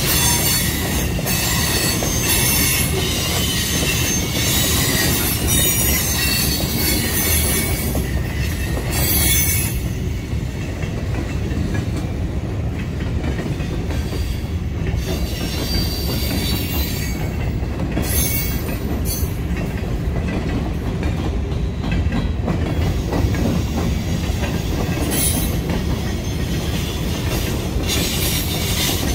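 Norfolk Southern freight train's boxcars rolling past: a steady rumble of steel wheels on rail, with high wheel squeal that comes and goes, strongest in the first ten seconds.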